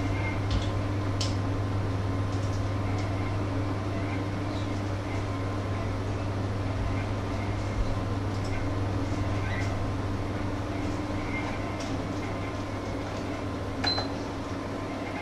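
Steady low electrical hum of a running appliance, with scattered light clicks and knocks. A sharper click with a brief high tone comes near the end.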